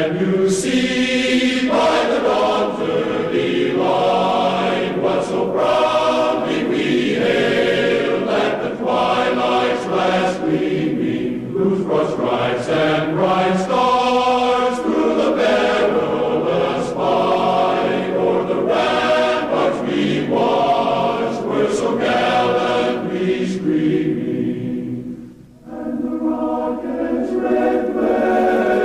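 Choir singing slow, held chords that change every second or two, with a short break about 25 seconds in.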